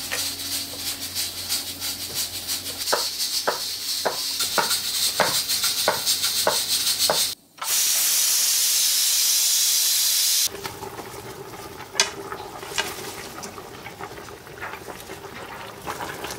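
Stovetop cooking: a steady hiss with light utensil clicks about two a second. After a cut about seven seconds in, a louder flat hiss runs for about three seconds, then gives way to quieter hissing with scattered clicks.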